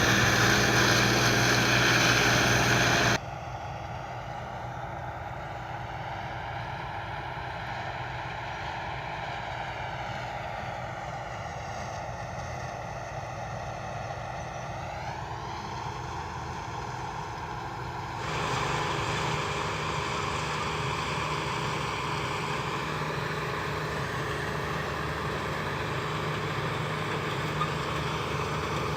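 New Holland 8080 combine harvester running steadily while threshing rice: a constant machine drone with engine tones. The sound changes abruptly about three seconds in, the tones rise in pitch briefly around the middle, and it gets louder again after a second abrupt change about eighteen seconds in.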